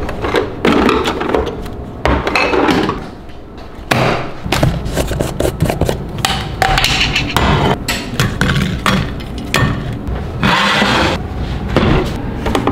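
Kitchen handling noises: a refrigerator door being opened, then a jar of nut butter and other things being picked up and set down on the counter, with many short knocks, clinks and scrapes.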